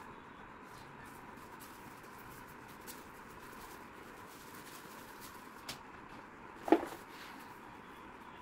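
Handling noise from unpacking a monitor box: a few faint clicks and rustles over a steady low hiss, then one sharp knock about two-thirds of the way through as items are lifted from the cardboard and pulp packaging.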